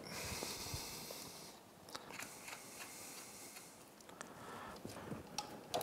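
Faint rustling, then scattered small clicks and ticks, as an outboard's wiring harness and its plastic connectors are handled.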